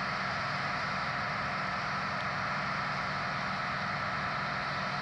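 A Claas Mega 204 combine harvester running steadily: an even engine and machinery drone with a faint steady tone.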